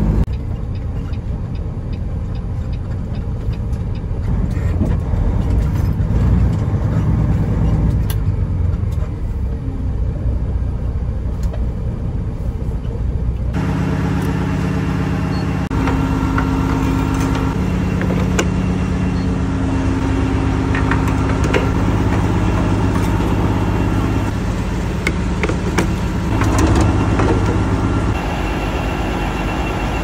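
Heavy diesel semi-truck engine rumbling steadily on the move. About halfway through, it changes abruptly to a steady, even hum of idling truck engines at a diesel fuel island.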